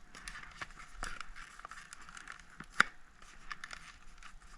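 Small metal tool scraping and clicking against an iPhone 6s while prying up a battery stuck down by its adhesive, with one sharp click a little past halfway.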